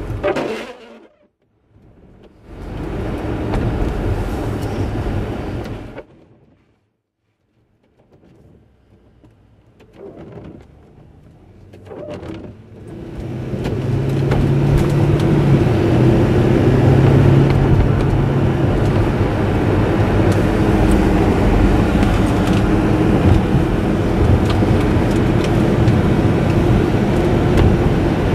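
Audi S8 engine and road noise heard from inside the cabin while driving. The sound nearly cuts out twice in the first half, then settles into steady, louder running with a constant low engine tone.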